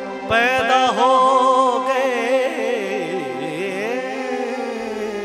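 Male singer holding a slow, heavily ornamented melody, the voice bending and wavering in pitch over steady held notes underneath.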